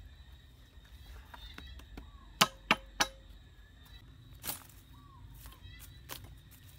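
Machete chopping into a tree root: three sharp strikes in quick succession about two and a half seconds in, then a softer one a second and a half later.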